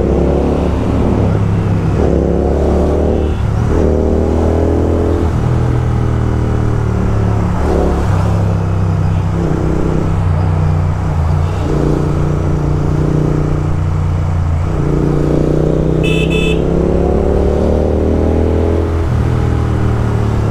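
Royal Enfield Continental GT 650 parallel-twin motorcycles with loud exhausts riding, the engine note rising and dropping again and again as they accelerate and shift. A short horn beep sounds about 16 seconds in.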